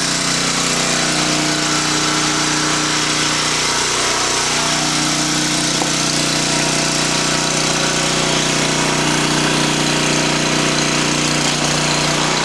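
Newly installed 10 HP Briggs & Stratton engine on a log splitter, running steadily at a constant speed.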